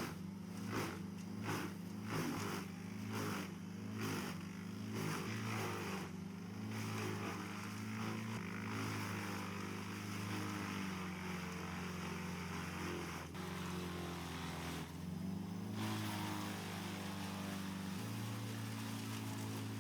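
Vermeer BC 2100 XL whole-tree chipper's diesel engine running under load while it feeds and chips a eucalyptus tree. For the first six seconds it chips in even pulses, about one every 0.7 s. After that the chipping turns into a steady grinding rush, and the engine note shifts a few times as the load changes.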